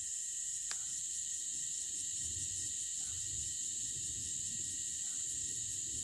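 Steady high-pitched insect chorus in a eucalypt forest at dusk, with a faint short call repeating about every two seconds and a single sharp click about a second in.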